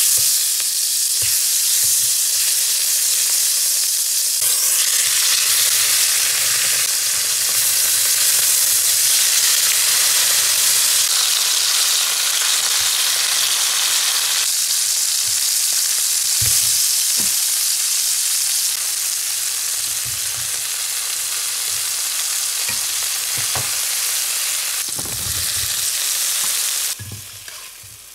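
Food sizzling loudly in a nonstick frying pan: butter, then steaks searing with garlic, then sliced mushrooms and onions frying, stirred and turned with a spatula and tongs. A few short knocks of the utensils come in the later part, and the sizzle drops off sharply near the end.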